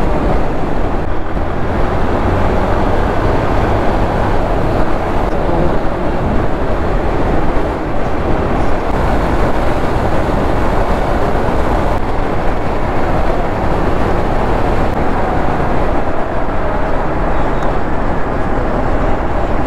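Hero Xpulse 200 4V motorcycle riding at steady highway speed: a constant rush of wind over the camera microphone, mixed with engine and road noise.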